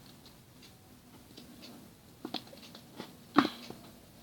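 Baby powder being shaken from its bottle into a bowl of slime mixture: faint small ticks, then several sharp knocks of the container, the loudest a little past three seconds.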